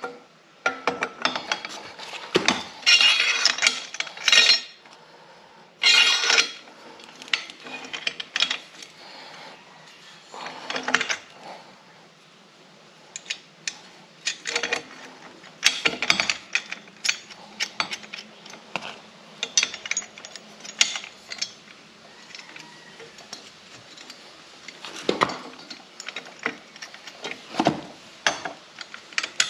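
Hand tools clinking and knocking on a motorcycle's metal exhaust mounting hardware as it is loosened: a string of irregular clanks and clicks, busiest in the first few seconds.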